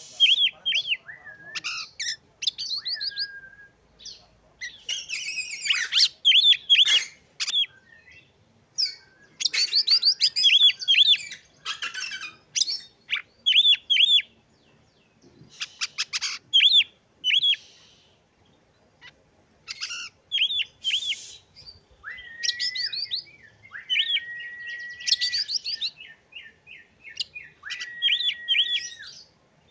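Oriental magpie-robin (kacer) singing a varied song: rapid phrases of repeated chirps, scratchy passages, and several held whistled notes later on, with short pauses between phrases.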